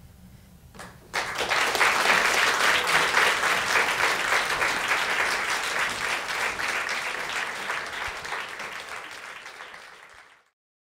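Audience applauding, starting abruptly about a second in, then slowly dying away and cut off near the end.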